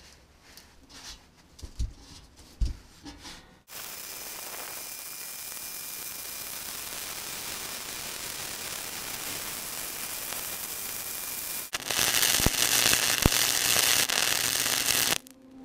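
Flux-core wire welder welding steel plate: a steady crackling hiss that starts about four seconds in, grows louder for the last few seconds and stops abruptly near the end. Before it, a few light knocks from the steel sheet being handled.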